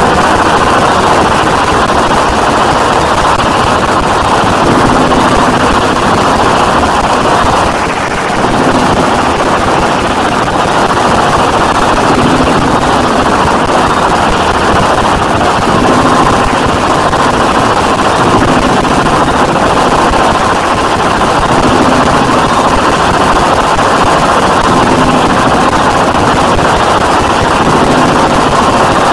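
Harsh industrial noise music: a loud, unbroken wall of distorted noise with a thin steady tone running through it, dipping briefly about eight seconds in.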